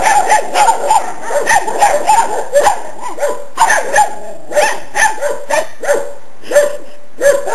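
Several young dogs barking at a chicken. The barks are short and high-pitched, several a second at first, then more spaced out.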